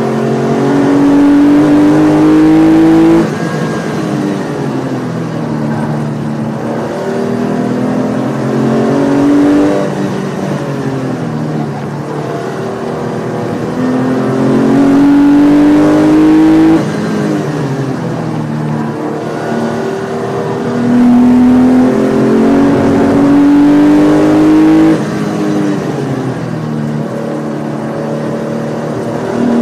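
Porsche 993's air-cooled flat-six engine heard from inside the cabin during hard track driving. Three times the revs climb loudly under throttle, and each climb cuts off abruptly. Between them are quieter stretches where the engine pitch falls and wavers.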